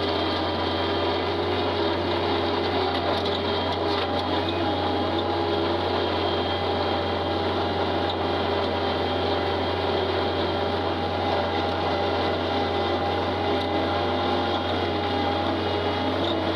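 Tractor engine running steadily at constant speed: a low drone with a faint steady whine above it.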